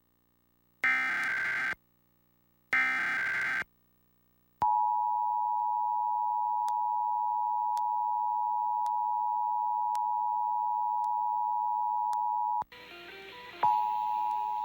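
Emergency Alert System SAME header: two harsh, buzzy one-second digital data bursts about a second apart. About four and a half seconds in, the steady two-tone EAS attention signal (853 and 960 Hz) starts. It cuts out briefly about twelve and a half seconds in, then resumes.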